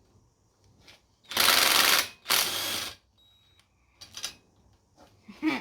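Air-powered ratchet or impact tool run in two short bursts, about a second and a half in and again just after, while a handlebar clamp screw is loosened, followed by a few small clicks of metal parts.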